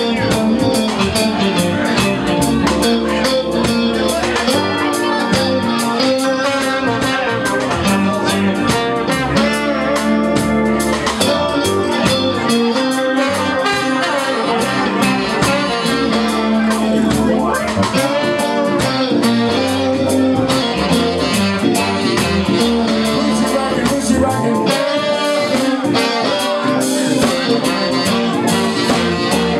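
Live band playing: electric guitars with saxophone and trombone over keyboard and drums, loud and continuous.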